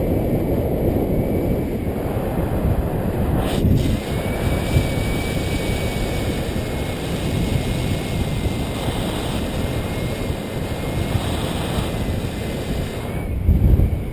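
Airflow rushing over the camera microphone on a paraglider in flight: a steady low rush. A faint high steady tone runs from about four seconds in until near the end.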